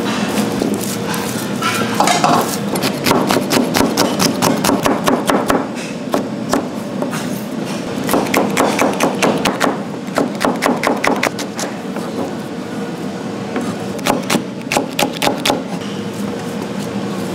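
Chef's knife chopping chili peppers on a plastic cutting board: several quick runs of sharp chopping strokes, about six a second, with short pauses between runs.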